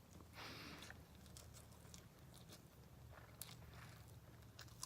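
Faint chewing of a big mouthful of sandwich: soft, irregular wet mouth sounds with a few small clicks.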